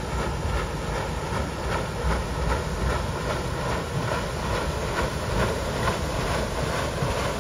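Paddle steamer Uri's side paddle wheels churning the water with a steady beat, about two a second, as the steamer comes in to the dock. There is a low rumble of wind on the microphone.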